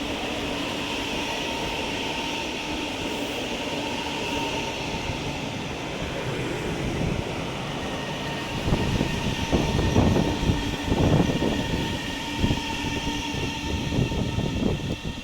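CSR Zhuzhou train arriving at a station: a steady running hum with a few held tones, then, a little past halfway, a louder run of irregular wheel knocks and clatter over the rails that eases off near the end.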